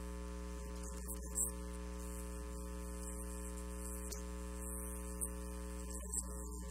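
Steady low electrical hum, with faint held tones sitting above it.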